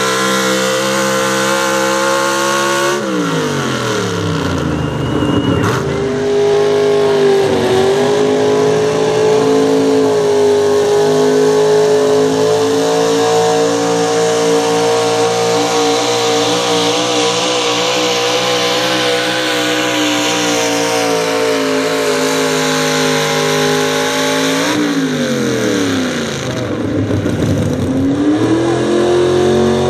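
Super stock pulling truck's engine at high revs under full load as it drags the sled. The revs dip and climb back a few seconds in, hold high and steady through most of the pull, then fall away near the end as the pull finishes.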